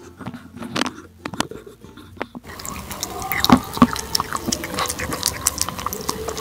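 Cat eating soft, pasty wet cat food from a plastic bowl right beside the microphone: wet smacking and chewing. Only a few scattered clicks come at first, then the eating becomes loud and continuous about two and a half seconds in.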